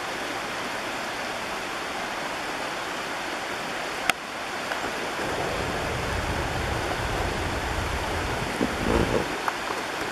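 Shallow creek water running over stones: a steady rushing. A sharp click about four seconds in, after which a low rumble and a few soft thumps join under the water near the end.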